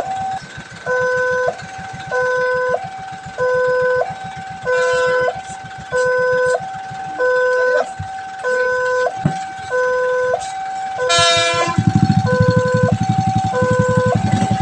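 Railway level-crossing alarm sounding a two-tone warning, a lower note and a higher note alternating about every 0.7 seconds. A loud low rumble joins it about twelve seconds in.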